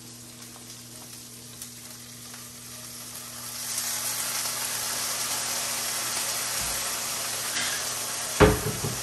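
Green beans sautéing in a hot pan, with water added to raise steam: a quiet frying sizzle swells about three and a half seconds in into a louder, steady hiss. A sharp metallic clank comes near the end.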